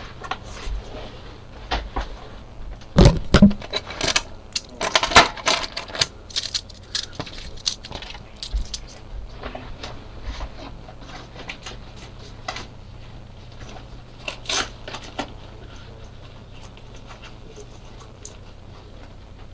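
Handling noise from a phone being moved and set down: knocks, scrapes and rattling clicks against its microphone, loudest about three and five seconds in, then only a few faint clicks over a low steady hum.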